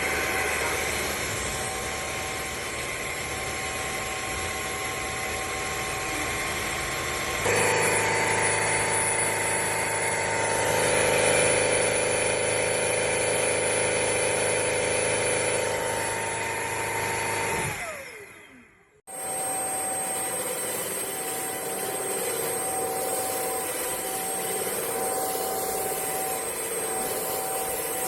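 Bissell CrossWave OmniForce cordless wet-dry vacuum running steadily. It gets louder and fuller about seven seconds in, winds down with a falling whine around eighteen seconds, then runs again from a second later.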